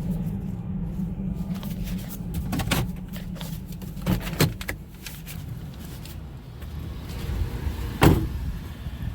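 Steady low rumble with several sharp clicks and knocks, the loudest a single knock about eight seconds in.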